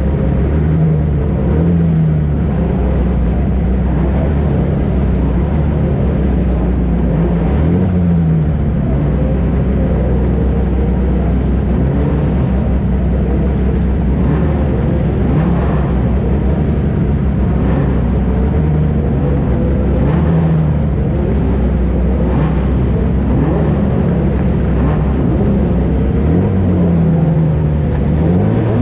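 1960s sports-prototype racing car engines running at speed. Their revs rise and fall over and over, with several engine notes overlapping.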